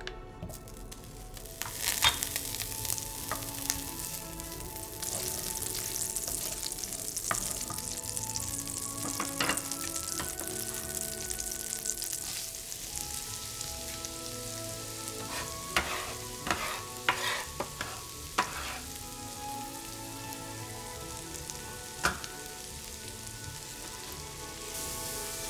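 Food sizzling as it fries in a hot pan, a steady hiss that sets in about two seconds in. A few sharp clicks and knocks come on top, mostly in a cluster after the midpoint.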